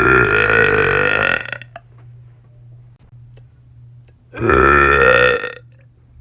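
A woman belching on purpose: two long, loud burps, the first right at the start lasting about a second and a half, the second about four seconds in lasting just over a second.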